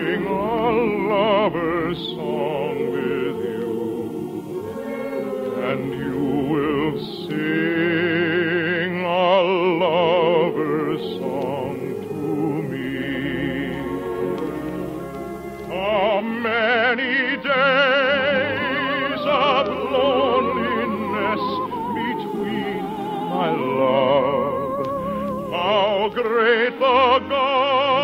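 Operatic-style singing with a strong vibrato over orchestral accompaniment: a musical number in a 1950s radio broadcast recording.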